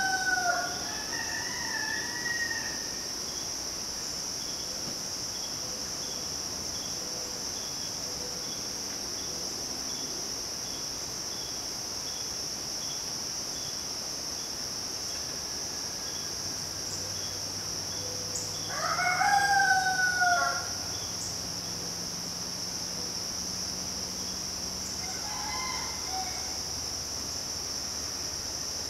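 Roosters crowing: the end of one crow right at the start, one full loud crow about two-thirds of the way through, and a fainter, more distant crow near the end. Under them runs the steady, high-pitched drone of midsummer insects.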